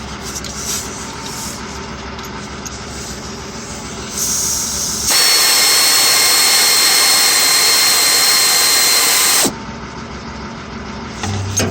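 Aerosol can of WD-40 penetrating oil spraying in one long, loud hiss of about four seconds, starting about five seconds in. It is being sprayed onto a stuck water pump pulley to free it. A steady low background noise comes before the spray.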